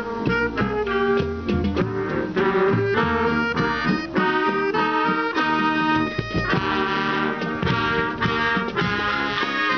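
High school marching band playing a field show: brass section with trumpets, trombones and sousaphone over drums, moving through quick chords and notes with steady drum strokes.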